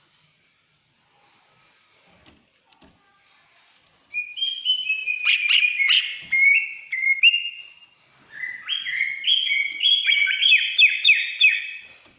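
Cucak ijo (green leafbird) singing two loud phrases of rapid, high whistled notes that step up and down in pitch. The first phrase starts about a third of the way in; the second follows a brief pause and runs to near the end.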